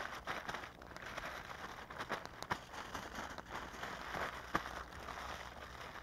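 Aluminium foil crinkling and rustling as hands fold and press it into a packet, with many small sharp crackles.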